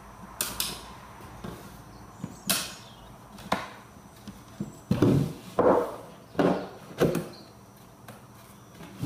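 Wooden drawer-box panels knocking and sliding together as a flat-packed drawer is fitted by hand: a few light taps, then four louder knocks in quick succession about halfway through as the panels are pushed into place.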